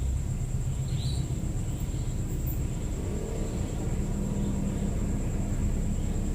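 Steady low rumble of background noise, with a thin steady high whine and a few faint, short high chirps.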